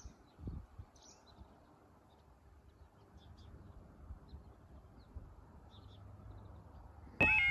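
Faint bird chirps over a low outdoor rumble. About seven seconds in, a level crossing's warning alarm starts suddenly and loud, a two-tone yodel that steps up and down in pitch: the warning sequence beginning as the road lights come on for an approaching train.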